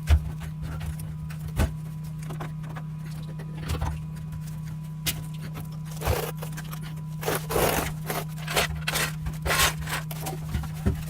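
Hand work on a truck's fuel tank and lines: irregular metal clicks, clunks and scraping of tools and parts, more frequent in the second half, over a steady low hum.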